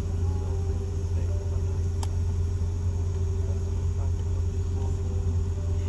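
Steady low cabin hum inside a Boeing 717-200 waiting before departure, with a steady higher tone over it and faint passenger chatter; a single click about two seconds in.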